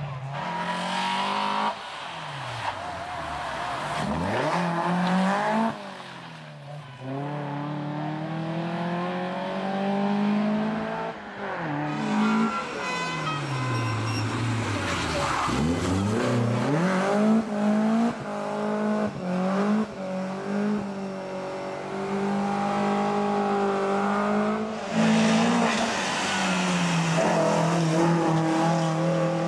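Volvo rally car's 16-valve DOHC engine, heard in several clips cut together, revving hard with pitch climbing and falling through gear changes and lifts into corners. The pitch sweeps steeply down as the car passes about 4 s and 15 s in, with some tyre squeal.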